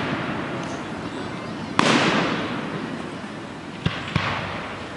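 Aerial fireworks bursting: one sharp bang about two seconds in, its echo dying away slowly, then two smaller reports in quick succession near the end, over the fading echo of earlier shells.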